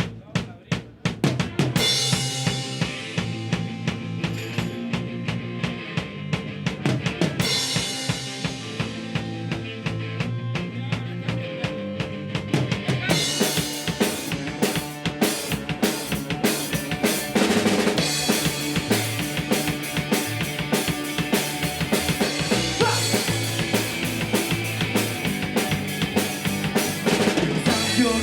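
Rock music led by a drum kit beat over a bass line, with cymbals coming in about two seconds in and the band sound growing fuller about halfway through.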